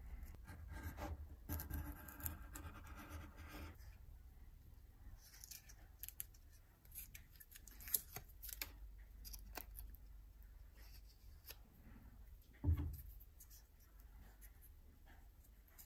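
Quiet handling noises of thin wood veneer strips and tape being pressed and rubbed onto a wooden handle: a scraping rustle over the first few seconds, then scattered small clicks and ticks. A single dull thump about three-quarters of the way through is the loudest sound.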